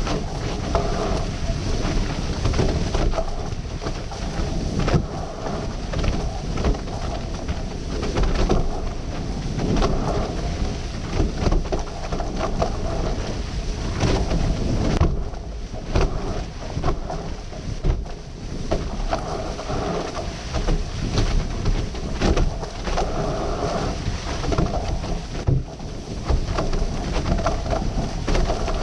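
Wind buffeting a bow-mounted action camera's microphone, with water rushing and splashing past a sailing catamaran's hulls at speed; loud and gusty, with many sharp spray hits.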